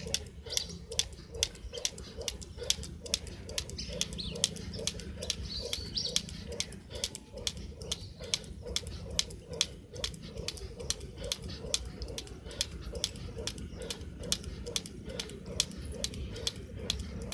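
Plastic jump rope slapping wet concrete on every turn in a steady, even rhythm, roughly three sharp slaps a second, with bare feet landing alongside.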